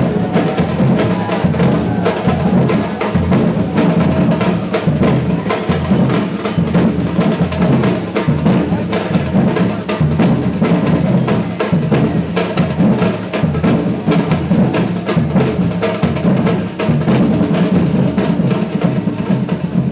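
Brazilian batucada percussion ensemble drumming together: a dense, fast, driving rhythm of deep bass drums under snares and sharp, high wooden-sounding hits.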